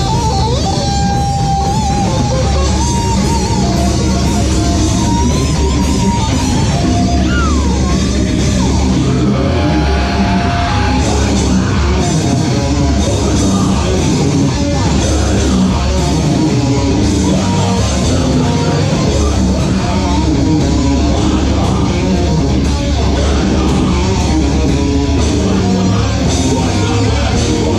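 Live heavy metal band playing loud: distorted electric guitars, bass guitar and drums, with some held, bending guitar notes in the first several seconds.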